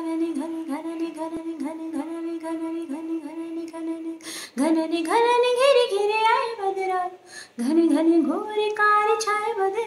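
A woman singing solo without accompaniment. She holds one long note for about four seconds, takes a breath, then sings two melodic phrases with pitch glides, without clear words.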